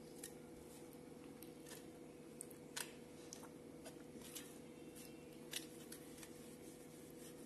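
Quiet eating sounds: a few short wet clicks and smacks from fingers mixing rice and mutton curry on a steel plate and from chewing, the loudest a little under three seconds in, over a steady low hum.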